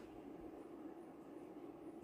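Quiet room tone with a steady low hum; no distinct sound stands out.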